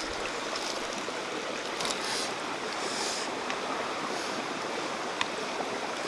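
Stream water flowing steadily, a constant rushing wash with a faint click or two.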